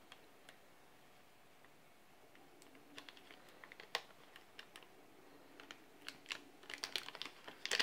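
Faint light clicks and crinkles of a small vanilla sachet being handled and worked open by hand. Sparse at first, the ticks come more often near the end.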